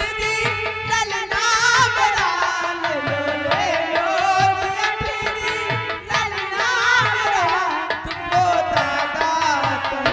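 A folk song sung by a solo voice through a PA microphone, with ornamented runs, over a hand drum playing a steady beat of about two strokes a second.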